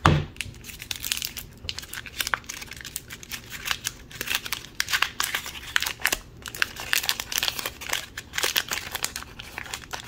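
Small plastic wrapper bag crinkling and rustling as fingers work it open and tear at it, in irregular bursts. A single sharp knock of hard plastic at the very start is the loudest sound.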